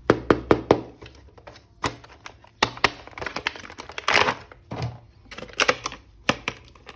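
Sharp plastic clicks and knocks mixed with crinkling, from hands handling and opening a plastic toy package, with a longer rustle about four seconds in.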